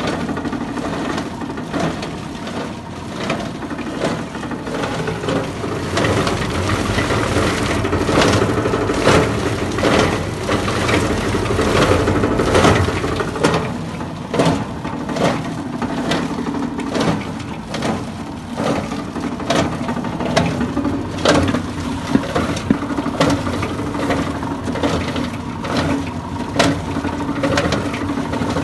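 A 20-inch scrap grinder driven by a 12.5 hp motor running steadily, with frequent irregular sharp cracks and knocks over its hum. It is louder and busier for several seconds in the first half.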